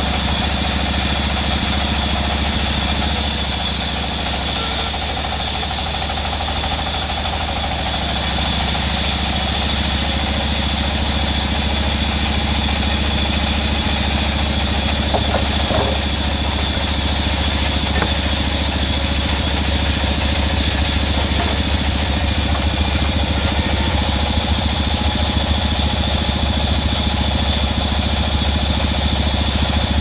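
Band sawmill running steadily while red mahogany timber is fed through its blade: a continuous machine drone with a thin high whine.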